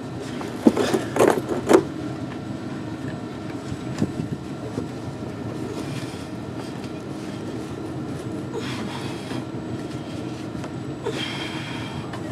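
Rubber fuel filler-neck hose being forced onto a T fitting by hand: a cluster of sharp knocks and clunks about a second in, then a click and occasional scuffing, over a steady low rumble.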